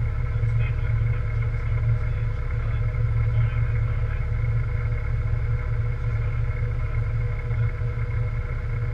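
Rally car's engine idling steadily, heard from inside the cabin, with an even low hum.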